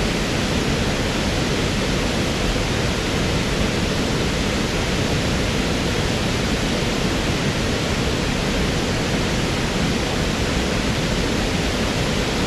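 Waterfall: a steady, unbroken rush of falling water, loud and even.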